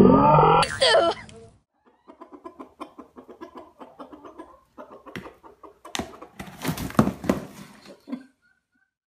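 A rooster clucking in runs of short, low calls, with a few sharper knocks in the last third. It opens with about a second and a half of loud music that cuts off.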